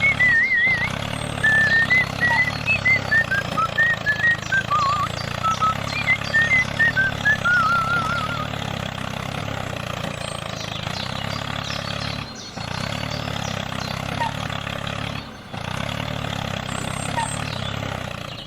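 Steady running buzz of a small toy-tractor motor. Over it, a high wavering whistle-like tune plays for about the first eight seconds.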